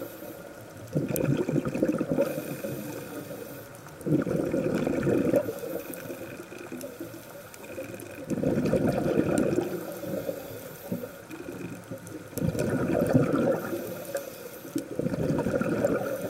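Scuba diver's breathing heard underwater through the regulator: a bubbling rush of exhaled bubbles about every three to four seconds, five times, with a fainter hiss between them.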